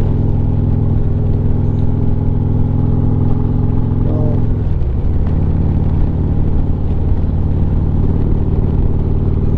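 Harley-Davidson Street Glide's V-twin engine running steadily at road speed, with wind rush over the bike. About halfway through, the engine note steps down lower.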